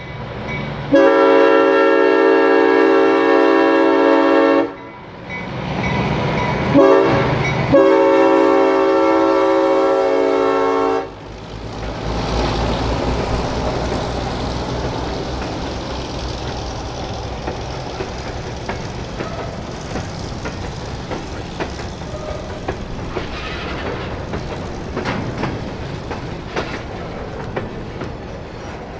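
Centercab diesel locomotive's air horn sounding several long blasts over the first ten seconds or so. The train then passes, with the diesel engine rumbling and the wheels clicking over rail joints.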